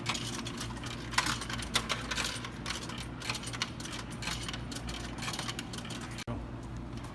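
Money being fed into a drinks vending machine: a run of small clicks and rattles, the loudest about a second in, over a steady low hum.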